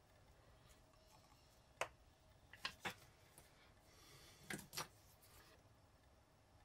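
Faint light clicks of a watchmaker's tweezers and small watch parts on the bench: about five taps, a pair near three seconds in and another pair near four and a half seconds.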